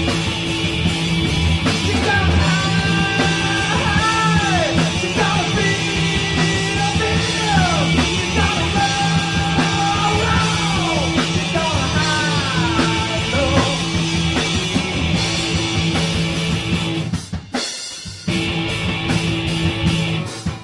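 Live rock band playing loud, with a high lead melody that bends and falls at the ends of its phrases. The music breaks off sharply for a moment about seventeen seconds in, then comes back.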